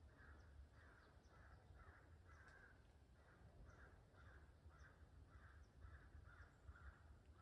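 Faint harsh bird calls in a quick, even series, about two to three a second, over a low rumble.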